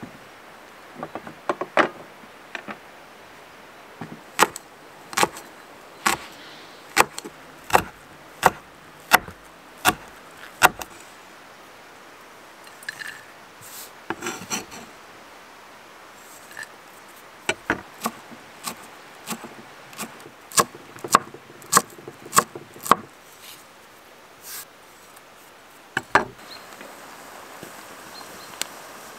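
Knife chopping green onion on a wooden cutting board: sharp, regular knocks a little over one a second, in two runs with a pause between them.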